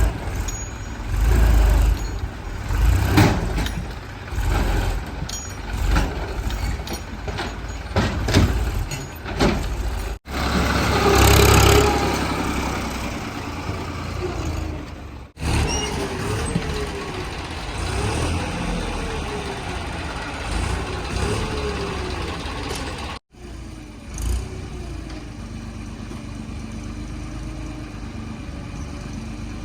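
Heavy diesel machinery at work: a backhoe loader and tipper trucks with engines revving up and down again and again, over knocks and clanks, and a burst of hiss about a second after the first cut.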